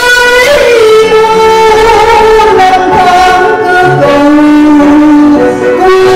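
A woman singing a slow Vietnamese hymn solo into a microphone, holding long notes, over instrumental accompaniment.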